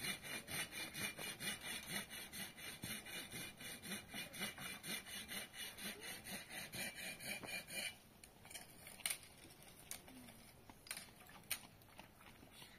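Hand saw cutting through wood in quick, even strokes, about three or four a second, stopping about eight seconds in; a few scattered knocks follow.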